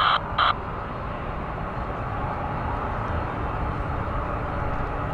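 Steady aircraft engine noise at an airport, with two short clipped bursts of air traffic control radio in the first half-second.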